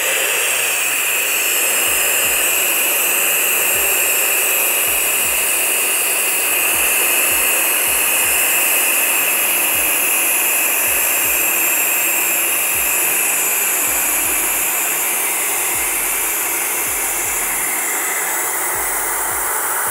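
Helium gas hissing steadily out of a large aluminum helium tank's valve nozzle into a 36-inch paddle balloon as it inflates.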